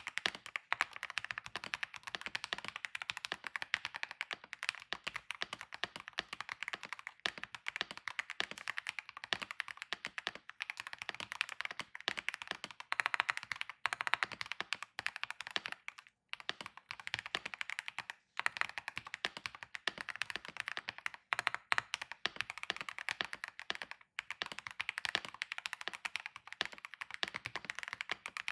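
Fast, continuous typing on a Keychron R6 Retro mechanical keyboard with factory-lubed Keychron Super Banana tactile switches and double-shot PBT OSA keycaps: a dense stream of key clicks with a few brief pauses.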